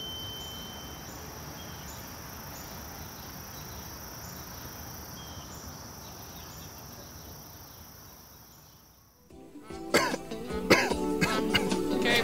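Film-soundtrack ambience: a steady hiss with a thin high ringing tone that stops about a second in, the hiss fading away to near silence; music comes in suddenly about three-quarters of the way through.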